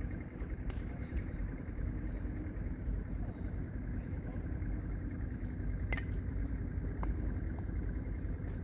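Strong wind buffeting the microphone: a steady, gusting low rumble, with a few faint sharp clicks.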